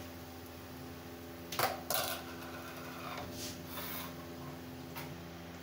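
Bread rolls sizzling in hot oil in a wok, over a steady background hum. A slotted spoon knocks sharply against the pan twice, about one and a half and two seconds in, with a short ringing after, and clicks once more near the end.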